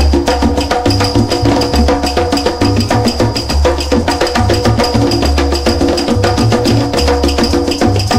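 Music with a fast, steady percussive beat over a deep bass.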